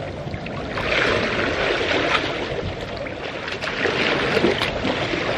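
Swimming-pool water sloshing and lapping right at a camera held at the waterline, with a few small splashes.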